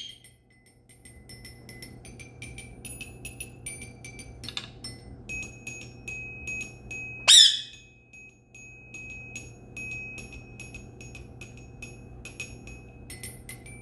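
A small toy xylophone tapped over and over with a mallet, giving high ringing notes a few times a second. An Indian ringneck parakeet gives one loud squawk about seven seconds in.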